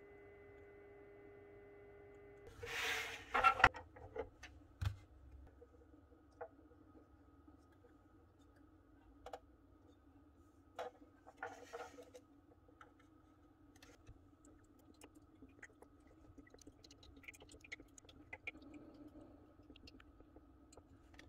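Hands handling the hard plastic parts of an egg incubator: a loud rustling clatter about two and a half seconds in, then scattered light clicks and taps. A faint steady hum lies under the first couple of seconds.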